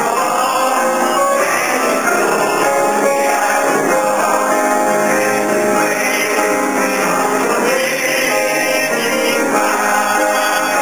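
Gospel song sung by a man over instrumental accompaniment, playing steadily.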